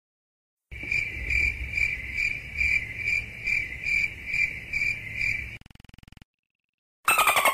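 Crickets chirping, a steady run of evenly spaced chirps about two a second, as in the familiar 'awkward silence' crickets meme sound effect. It stops about five and a half seconds in, and a different sound with falling pitch starts near the end.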